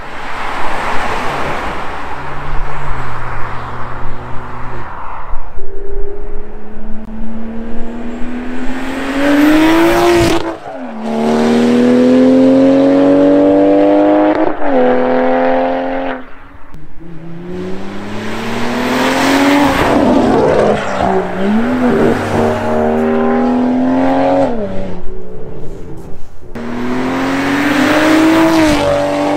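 BMW G20 M340i's turbocharged 3.0-litre inline-six, breathing through a free-flow downpipe and Valvetronic Designs exhaust, accelerating hard. The exhaust note climbs steadily in pitch and then drops sharply at each upshift, about three times, after a rushing noise in the first few seconds.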